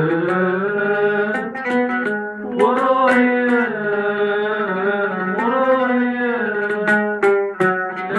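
A man singing with long held notes that slide in pitch, accompanying himself on an oud plucked with a pick, the plucks coming through as repeated sharp attacks under the voice.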